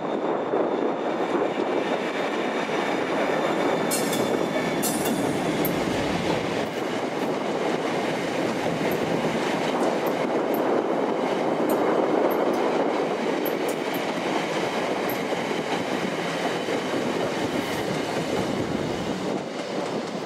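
A Class 57 diesel locomotive passes at speed with two unpowered Class 365 electric units in tow, heading for scrap, making a steady rolling rumble of wheels on rail. A few brief high squeaks and clicks come about four to six seconds in, and the rumble eases slightly near the end.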